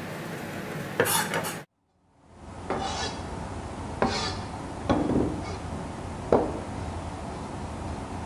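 A chef's knife chopping herbs on a wooden cutting board: a quick cluster of knocks about a second in, a brief dropout, then single knocks of the blade on the board about a second apart, over a steady background hiss.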